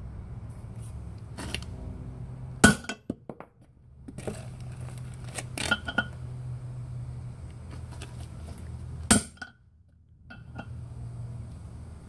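Big hammer striking a brass drift set on a wheel stud: three sharp, ringing metal blows a few seconds apart. The blows drive a pressed-in stud out of a GM 14-bolt full-floating hub and brake drum; the stud was a tough one.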